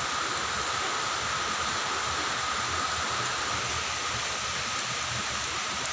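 Steady hiss of rushing water, with no breaks or distinct strokes.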